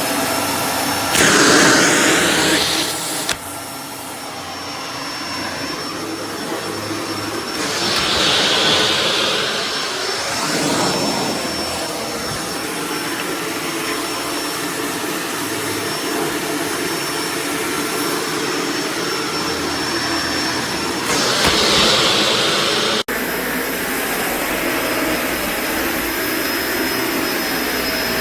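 Kenmore BU4050 bagged upright vacuum running, with a steady high motor whine under a rush of air. The air noise swells and fades three times.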